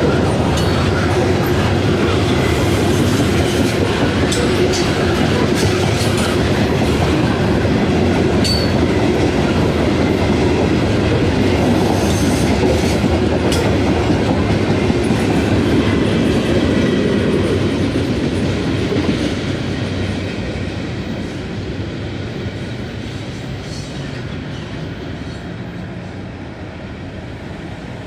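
Freight train cars rolling past, the wheels clacking over the rail joints with scattered clicks. The sound holds steady, then fades from about two-thirds of the way through as the train moves off.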